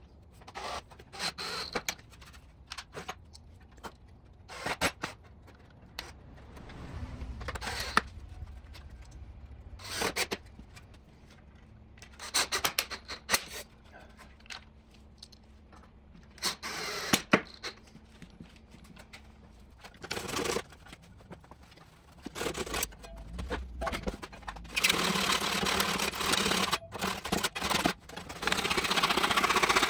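Handling noise of pallet-wood boards and tools on a workbench: scattered clicks, knocks and scrapes, then a few seconds of steady scraping near the end.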